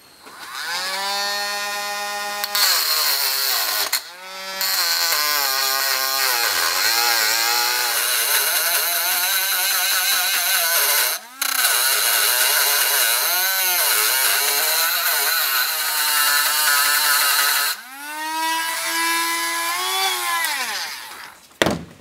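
Dremel rotary tool spinning a burr against the inside of a chrome-plated steel socket, grinding the chrome coating off its flats. The motor whine wavers in pitch as the burr bites, with short breaks about 4 and 11 seconds in. Near the end the tool runs free, then winds down.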